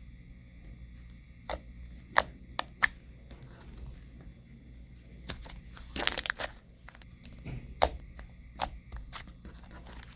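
Thick slime being squeezed, poked and stretched by hand, giving scattered sharp clicks and pops, with a short run of crackling about six seconds in.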